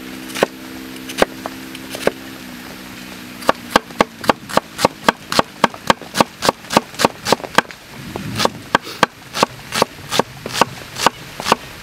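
Large kitchen knife chopping an onion on a wooden board. A few single slow cuts come first, then from about three and a half seconds in, rapid even chopping at about four strokes a second.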